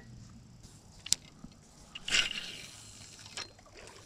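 Fishing rod and reel being handled: three sharp clicks and a short rushing burst about two seconds in.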